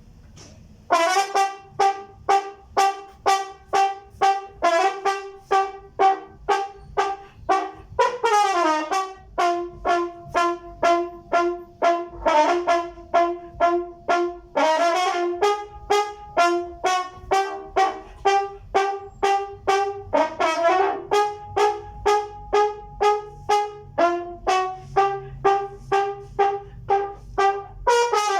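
Garibaldi saxophone playing a lively tune of short, separately tongued notes, about two to three a second. The notes keep mostly to one low-middle pitch, with scoops up into some of them. Playing starts about a second in.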